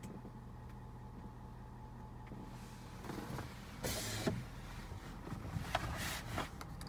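Power rear window of a pickup cab, its motor running with a low steady hum for about two and a half seconds, then scattered clicks and brief rustles of handling.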